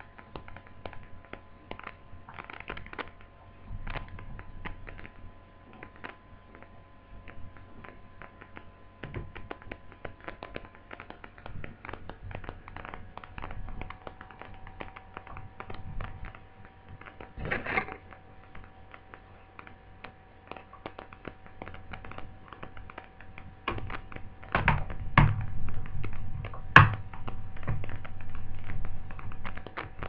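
Small clicks, taps and knocks of a laptop's plastic case being handled, with a few louder knocks near the end, over a faint steady whine.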